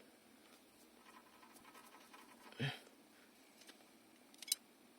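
Near silence: quiet room with faint handling noise, a brief puff of sound a little past halfway and a couple of light clicks near the end.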